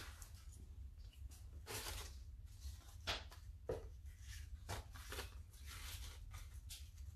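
Paper and art materials being handled on a worktable: a string of short soft rustles and scrapes, a few seconds apart, over a low steady hum.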